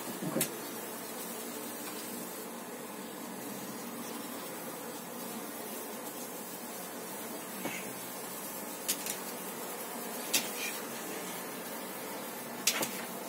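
Honey bees buzzing steadily around brood frames lifted out of the hive, with a few light clicks from the wooden frames being handled.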